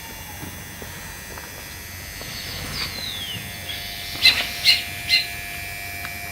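Baya weaver birds calling: a thin falling whistle, then three sharp chirps about half a second apart, over a faint steady high hum.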